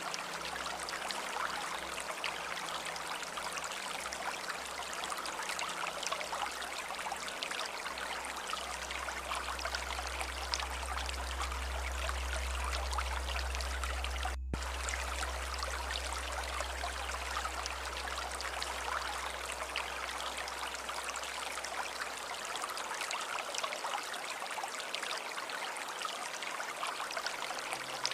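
Stream of running water, a steady rushing and trickling, with a low rumble that swells in the middle and a momentary break in the sound about halfway through.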